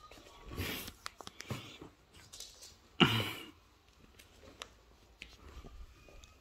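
Rustling and handling noise as a hand strokes a tortoiseshell cat's fur close to the phone, with a loud brief rub about three seconds in and a few light clicks.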